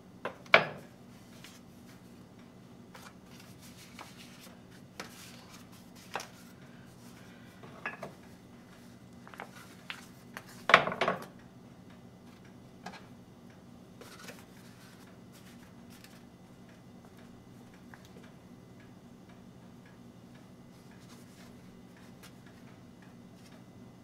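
Scattered light clicks, crinkles and knocks of a disposable aluminium foil baking pan as fingers press pastry dough down around its edges, with a sharper knock about half a second in and a louder cluster around eleven seconds. A faint steady low hum lies underneath.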